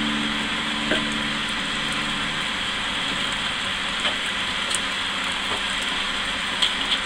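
Recirculated wort pouring from the hose outlet straight onto the top of the grain bed in a stainless mash tun, a steady splashing with a few small clicks.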